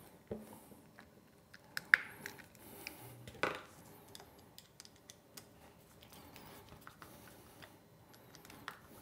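Faint plastic clicks and small knocks as the housing of a yellow plastic plug connector is pressed together and its assembly screws are turned with a screwdriver. A sharp click about two seconds in is the loudest, with a duller knock a moment later.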